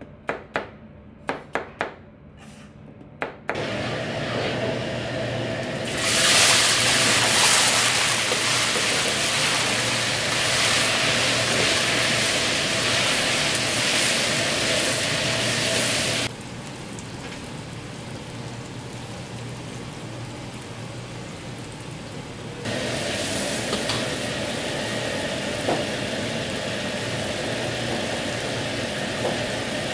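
A cleaver chops onions on a plastic cutting board, several quick sharp knocks. About three and a half seconds in, it gives way to a wok cooking over a gas burner: a steady, loud hiss of diced pork bubbling in liquid with a low burner hum. The hiss drops sharply about 16 seconds in and comes back about 23 seconds in.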